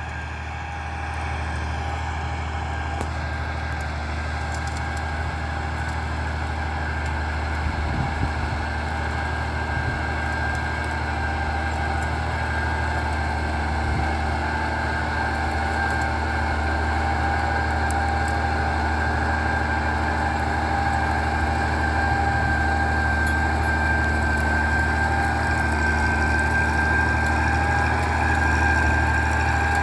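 Valtra 1780 tractor engine running steadily while pulling a disc plough through the soil, a deep drone with a steady high whine over it. It grows gradually louder as the tractor comes closer.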